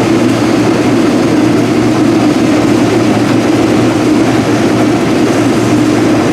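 Rotary combine harvester running steadily while picking corn: a loud, even engine and machinery drone with a constant hum.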